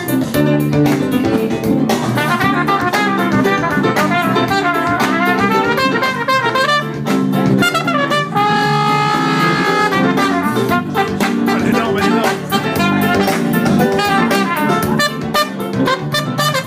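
Live funky jazz band with trumpet playing over a drum kit, with regular drum hits; about eight seconds in the trumpet holds one long note for a second and a half.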